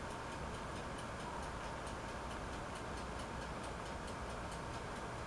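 Faint, even ticking, several ticks a second, over a low steady hiss and a thin steady tone.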